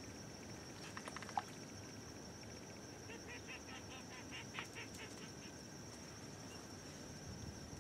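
Faint marsh ambience with low wind noise, and a bird giving a quick run of short high notes from about three seconds in.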